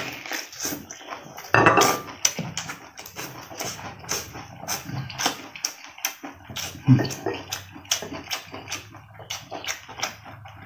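Close-up chewing and lip-smacking of someone eating boiled tripe strips dipped in chili broth: a steady run of wet clicks and smacks. There are louder bites or slurps about one and a half seconds in and again near seven seconds.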